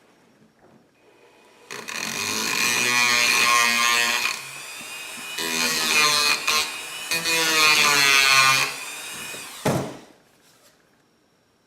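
Small high-speed rotary tool running and grinding PVC, its motor pitch wavering as it bites. It runs for about eight seconds with a brief easing in the middle, then stops with a sharp click.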